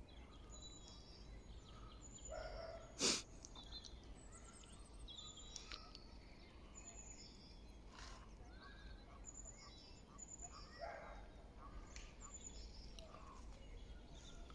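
Faint birdsong: many short chirps and calls from several birds, scattered throughout. One sharp click about three seconds in is the loudest thing.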